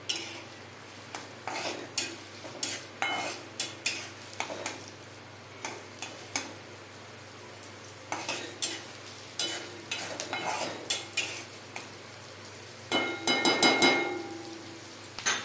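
Chopped onion sizzling as it fries in hot oil in a kadhai, while a spatula stirs it with short, irregular scrapes and taps against the pan. There is a longer run of scraping near the end.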